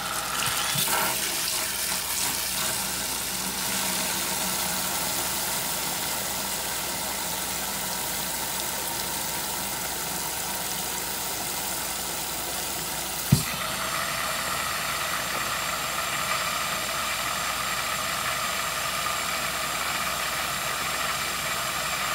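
Hot water from a kitchen tap pouring steadily into a plastic basin of sudsy detergent water in a sink, filling it; a single sharp click about two-thirds of the way in, and the flow stops at the very end.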